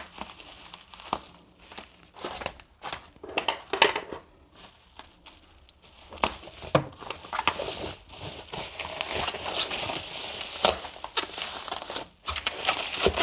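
Wrapping around a book parcel crinkling and tearing as it is unwrapped by hand: irregular rustles and crackles, sparse at first and thicker and steadier in the second half.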